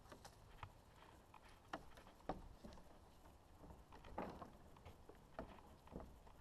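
Faint, scattered knocks and scuffs of a climber moving up a wooden climbing wall: hands and shoes striking and gripping plastic holds and the wood planks, with a few sharper taps spread through an otherwise near-silent stretch.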